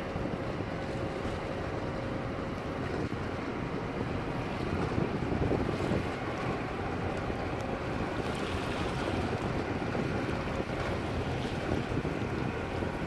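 Steady wind buffeting the microphone over water washing against concrete breakwater tetrapods.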